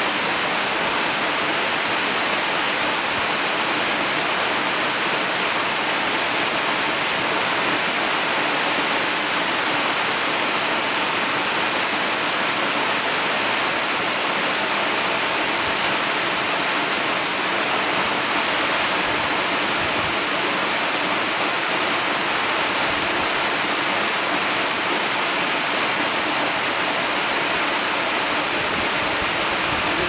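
Waterfall pouring down a rock face into a rocky pool: a steady, even rush of falling water that neither swells nor fades.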